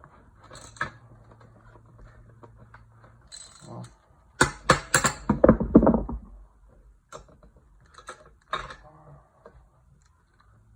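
Metal clinks and clicks from hand tools as bolts are tightened, with a loud run of rapid clicking and rattling about four seconds in.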